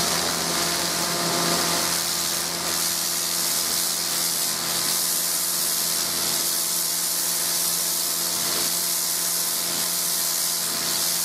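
Kärcher K5.740 electric pressure washer running with the trigger held, its rotary dirt blaster nozzle blasting water onto concrete: a steady hiss of spray over the even hum of the electric motor and pump.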